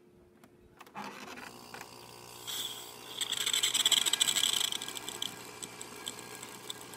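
DeLonghi Magnifica XS espresso machine running its pump with a steady mechanical hum. A loud crackling hiss joins about two and a half seconds in, strongest in the middle and easing off toward the end, as the freshly serviced machine is test-run.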